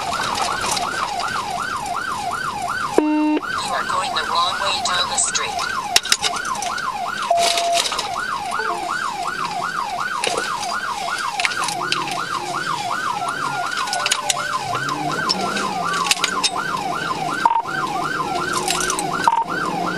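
Police patrol car siren in fast yelp mode, its pitch sweeping up and down about three times a second. Near three seconds in it breaks off briefly with a short low tone.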